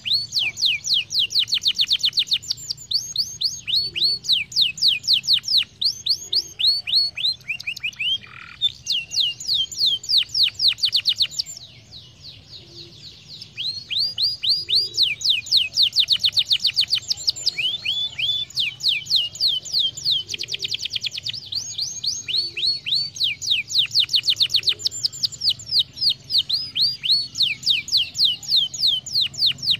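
Domestic canary singing: long, fast trills of repeated downward-sweeping whistled notes, one phrase running into the next, with a short pause about twelve seconds in.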